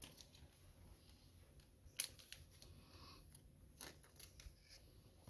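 Near silence with a few faint, sharp clicks of trading cards being handled and set down, the clearest about two seconds in and another near four seconds.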